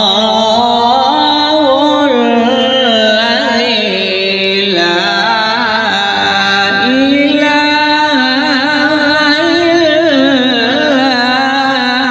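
A single voice singing a devotional naat in long, held notes that waver and glide in pitch, with no instruments or beat.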